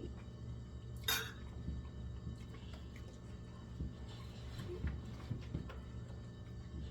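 Eating sounds: a utensil clinking against a plate a few times, the sharpest clink about a second in, over a steady low hum.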